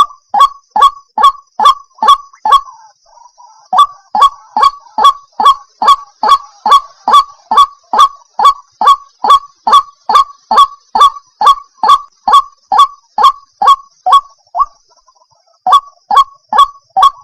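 White-breasted waterhen (ruak-ruak) giving its loud, repeated honking call, about two and a half calls a second, in long runs broken by two short pauses.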